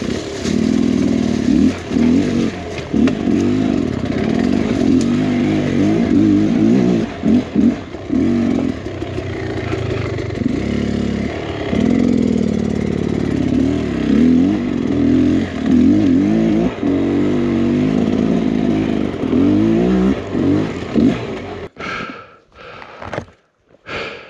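2023 Beta X-Trainer 300's two-stroke single-cylinder engine revving up and down over and over as the dirt bike is worked through technical ground, with some clatter and scraping. About 22 seconds in the engine cuts out abruptly, and a few hard breaths follow.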